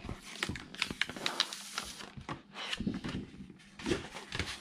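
Cut cardstock being peeled off an adhesive Cricut cutting mat: irregular crackling and paper rustling, densest in the first two seconds, with a few more crackles later.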